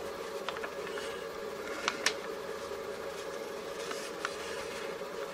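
Faint rustle and crinkle of a paper instruction sheet being handled, a few soft clicks about two seconds in and again near four seconds, over a steady background hum.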